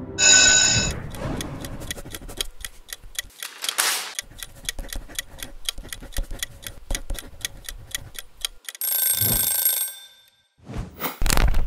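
A clock ticking steadily, a few ticks a second. A short bright ring comes at the start, a longer bell-like ring like an alarm clock's about nine seconds in, and a loud burst of noise just before the end.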